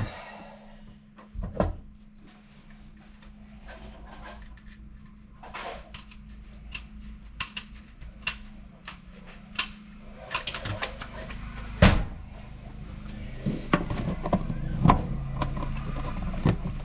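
Scattered clicks and knocks of work being handled at close range, with one loud knock about twelve seconds in, over a steady low hum that grows louder in the second half.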